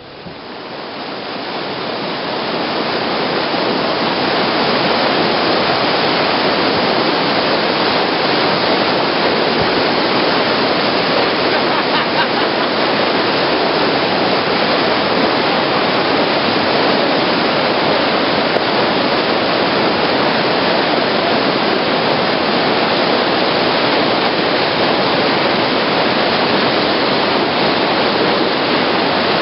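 Whitewater rapids rushing: a steady, loud roar of churning river water that fades in over the first few seconds and then holds even.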